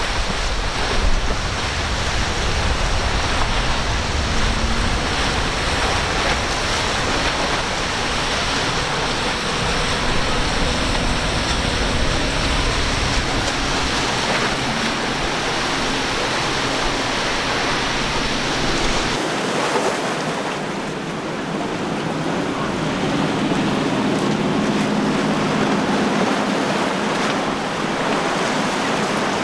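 Rough inlet water and boat wake spray rushing steadily, with outboard motors of passing center-console boats under it. A low wind rumble cuts off abruptly about two-thirds through.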